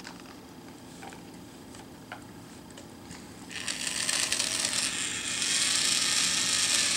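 Yellow toy power drill running against a plastic toy helicopter, starting about halfway through and staying loud to the end. Before it, a few light plastic clicks and taps from handling the toys.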